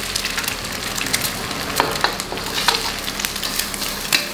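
Eggs frying in hot oil in a stainless steel wok with shallots and garlic: a steady sizzle dotted with scattered sharp pops and clicks.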